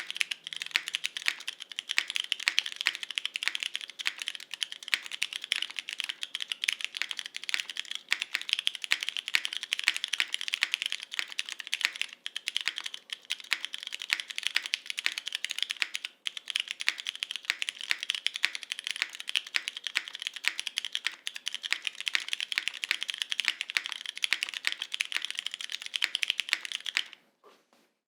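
Fast, continuous typing on a Monokei x TGR Tomo mechanical keyboard. It has Cherry MX Brown tactile switches, diamond-polished, lubed with 205g0 and filmed, on an O-ring-mounted polycarbonate plate, with GMK Muted 2 keycaps. The rapid keystroke clicks stop about a second before the end.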